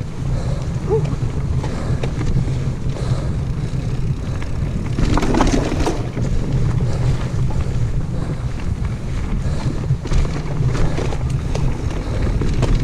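Wind buffeting a chest-mounted action camera's microphone as a steady low rumble, with scattered light clicks and rattles.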